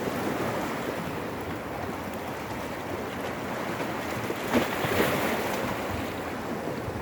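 Sea waves surging against rocky boulders along a pebbly shore, a steady wash of surf with one louder splash about four and a half seconds in.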